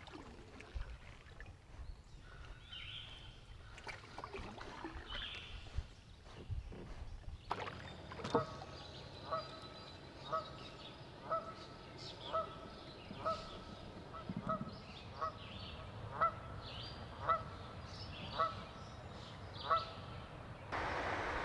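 A goose honking over and over, about a dozen calls roughly one a second, after a quieter stretch. Near the end a steady rushing noise comes in abruptly.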